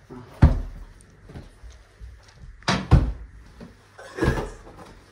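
Blue sofa cushions swung and striking, a few heavy thumps: one near the start, a quick double thump around the middle, and another near the end.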